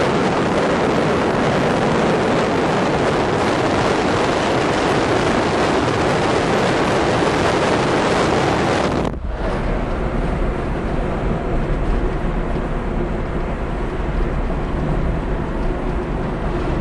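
Wind and road noise of a car driving at speed on a highway, a loud, rushing noise at the side window. About nine seconds in it drops abruptly to a quieter, steadier cabin noise of the moving car.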